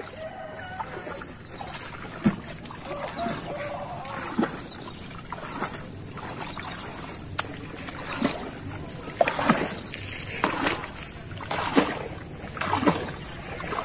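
Water splashing and dripping as a wet gill net is hauled hand over hand out of the river into a canoe: short splashes about once a second, coming louder and closer together in the second half.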